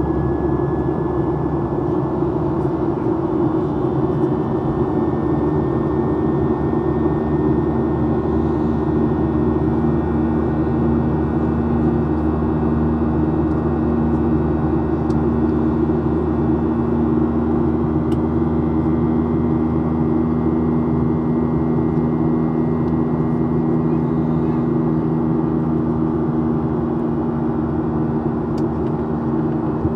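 Steady cabin drone of a Boeing 737-800, its CFM56-7B turbofans and the airflow heard from a forward window seat. The drone carries several steady low hums and a faint high whine that rises slowly.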